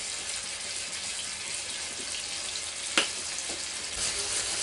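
Pork loin medallions sizzling in olive oil in a hot frying pan, a steady hiss with one sharp click about three seconds in. The frying gets louder near the end as the pan is moved.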